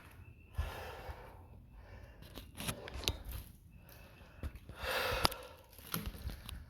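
A person breathing hard to recover after intense cardio exercise: several heavy breaths a second or two apart. A couple of sharp clicks come about three and five seconds in.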